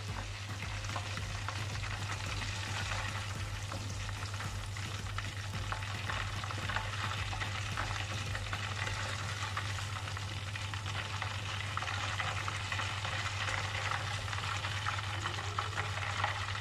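Batter-coated chicken drumsticks deep-frying in hot oil in a steel pot: a steady bubbling sizzle full of fine crackles, over a steady low hum.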